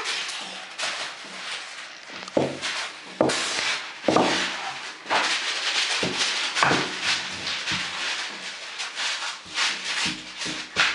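Wooden rolling pin rubbing and scraping back and forth over dough on a cloth-covered table, with a few knocks as it is brought down onto the table.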